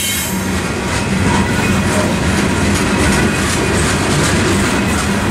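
Covered hopper cars of a freight train rolling past at close range: a steady rumble of steel wheels on rail with repeated clacks as the wheels cross rail joints.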